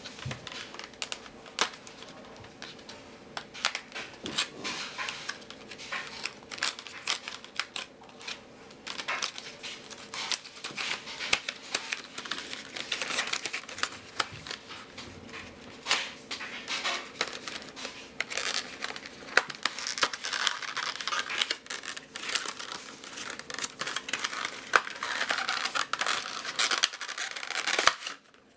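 A phone case's retail packaging being opened by hand: crinkling and tearing with many small clicks and scrapes, getting busier in the second half.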